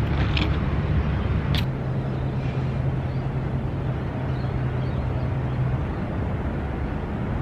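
Steady outdoor background noise: an even rush with a low steady hum under it that stops near the end, and a couple of faint clicks in the first two seconds.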